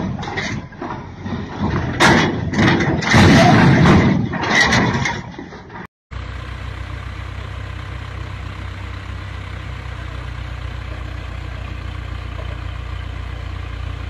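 Loud, uneven mechanical noise with sharp knocks as a tracked excavator on a lowboy trailer tips the trailer up. After a short break this gives way to a steady, low diesel engine drone from a mobile crane lifting a boat.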